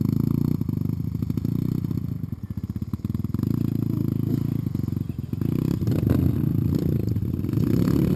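Enduro dirt bike engine running at low revs, the throttle eased off about two and a half seconds in, then picking up again, with scattered knocks and rattles.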